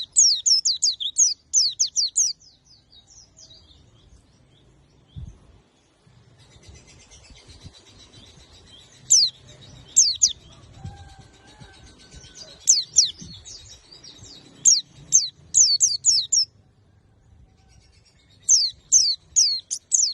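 White-eye (pleci) singing its rapid 'tembakan' song: runs of quick, sharp, high notes, each sweeping downward. The runs come in several bursts separated by short pauses.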